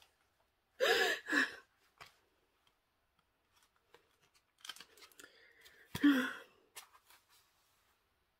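A woman's voice making two short, unclear murmured sounds, one about a second in and one about six seconds in, with a few faint small clicks between them.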